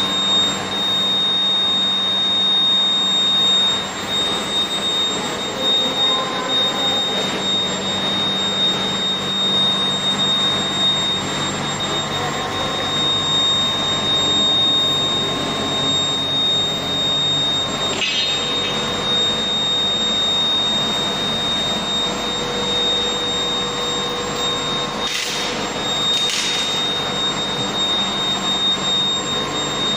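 An induction melting furnace and horizontal continuous casting machine running: a steady industrial drone with a constant high whine. A few brief, sharper sounds break in about two-thirds of the way through.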